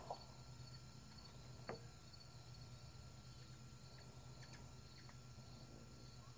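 Near silence: faint outdoor ambience with quiet, steady cricket chirring and a single soft click a little under two seconds in.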